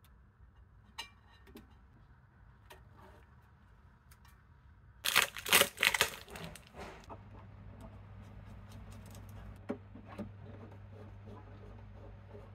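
Scattered light handling clicks, then about five seconds in a loud crinkling of a plastic bag and foam packing as a turntable headshell is pulled out. After that, a faint low steady hum with a few small clicks.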